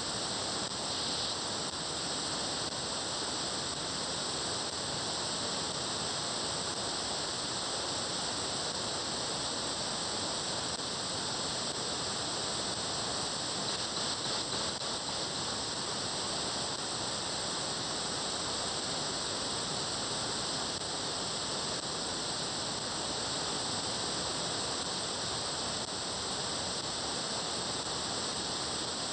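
Steady hiss of radio receiver static from an SDRplay RSP1 software-defined radio demodulating upper sideband on the 436.7 MHz UHF satellite downlink, with no clear signal standing out of the noise.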